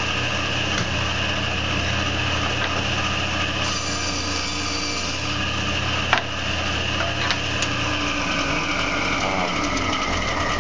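10-inch table saw running with a steady hum and whine, its blade cutting a groove part-way into a board fed along the fence, with a burst of cutting hiss about 3.5 to 5 seconds in. A sharp click comes about 6 seconds in, and the hum falls slightly in pitch near the end.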